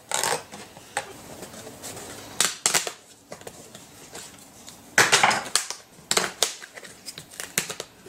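Scissors snipping through the plastic lower dash trim panel and its felt lining to cut out the clutch-pedal opening. It comes as a run of irregular, sharp crunching snips, the loudest cluster about five seconds in.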